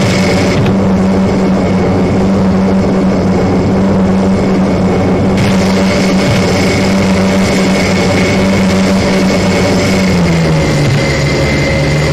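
Airplane engines droning steadily, a loud hum with several held tones; the main hum drops in pitch about ten seconds in.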